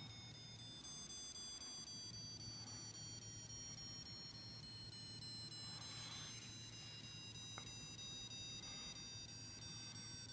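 The TRS-80 PC-2 pocket computer's built-in beeper plays a BASIC test program that steps through the machine's tones: a thin, faint, high tone that moves down in pitch step by step. A brief click comes about three quarters of the way through.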